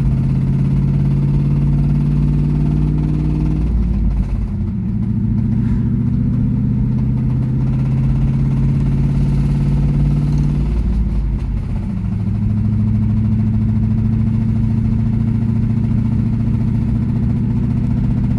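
LS1 5.7-litre V8 running with a rod knock, the sign of a failed connecting-rod bearing. The engine's speed shifts a couple of times.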